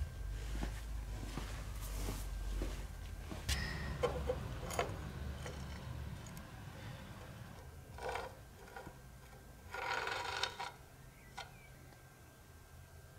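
Handling a bicycle wheel hub in the workshop: a few light metal clicks and knocks in the first five seconds, then two short bursts of scraping and rubbing, the second and louder one about ten seconds in, over a low rumble that dies away about halfway through.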